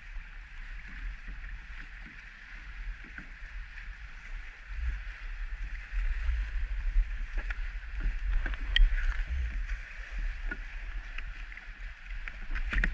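Choppy water sloshing and lapping against a kayak hull over a steady low rumble, with a few light clicks and knocks of gear being handled on deck, the sharpest about nine seconds in.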